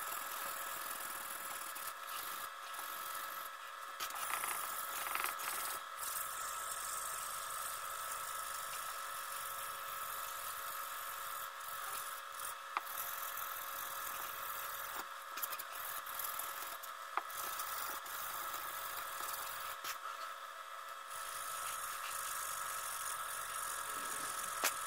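A cloth rubbing dark stain into a wooden gunstock, a scratchy hiss with small clicks, over a steady electric whir with several fixed tones.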